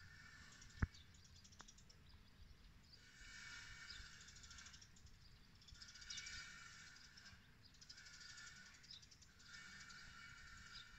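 Faint birdsong: a trilled phrase repeated about every three seconds, with one sharp click about a second in.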